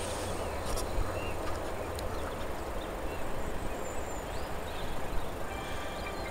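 Steady outdoor noise on the microphone, with a few faint, short bird calls above it.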